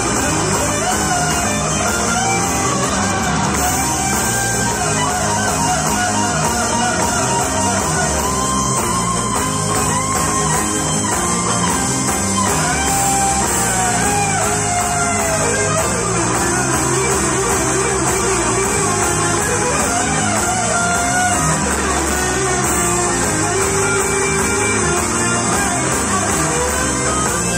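Live Andalusian rock band playing through a PA: electric and acoustic guitars, keyboard and drums, with a wavering melody line over a steady beat.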